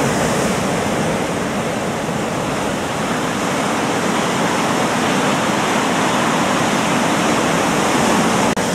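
Sea surf breaking and washing over rocks: a steady, loud rush of water.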